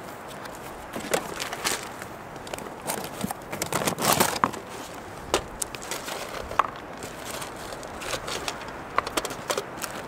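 Rustling with a run of sharp clicks and light knocks as camping gear is handled on a rock, busiest about four seconds in, over a steady background hiss.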